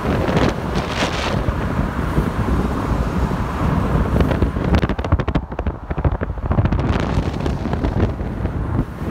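Car travelling at highway speed: steady road and engine rumble with wind buffeting the phone's microphone in gusts, strongest about halfway through.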